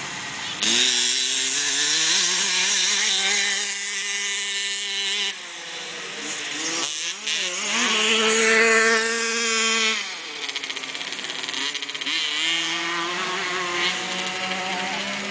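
An engine revving in three long bursts: each time the pitch climbs quickly and then holds high for a few seconds before dropping back.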